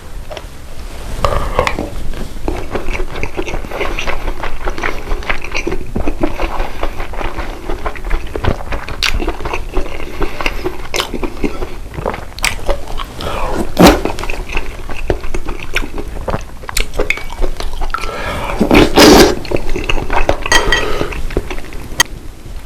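A person eating, with repeated sharp clicks of spoon and chopsticks against dishes and chewing between them. Near the end there is a louder noisy burst lasting about a second.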